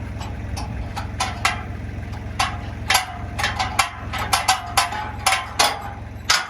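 Freshly sawn lumber boards clattering and knocking against each other as they are handled and stacked: a string of a dozen or more sharp, ringing wooden knocks, coming thicker in the second half. Under it the sawmill's engine keeps running with a steady low hum.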